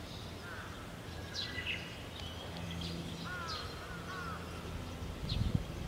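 Outdoor birdsong: several short chirps and sweeping calls, a few rising-and-falling calls in a row about three seconds in, over a steady low hum. There are a few low bumps near the end.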